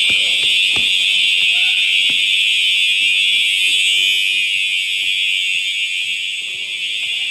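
School fire alarm sounding a steady, high-pitched, unbroken tone, with a few knocks in the first two seconds.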